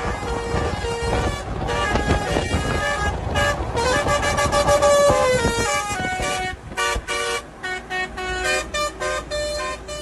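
A lorry's telolet horn, a set of tuned air horns, playing a tune: held notes that step up and down in pitch, then from about six and a half seconds in a quick run of short on-off blasts. Engine and road noise run underneath.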